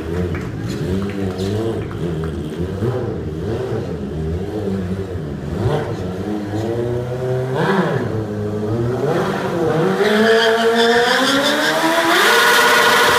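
Stunt motorcycle engine running with the throttle worked up and down through a wheelie, with a sharp rev blip about eight seconds in. The revs then climb from about ten seconds in and are held high and steady near the end as a stationary burnout begins.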